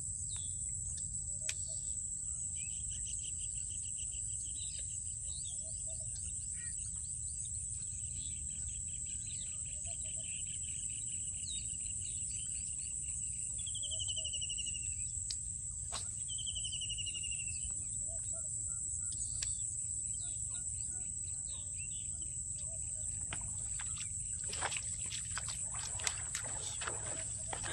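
Insects droning steadily at a high pitch, with birds calling over them: a long trilled series, then two short falling whistled notes about halfway through. A steady low rumble lies underneath, and a cluster of sharp clicks or knocks comes in the last few seconds.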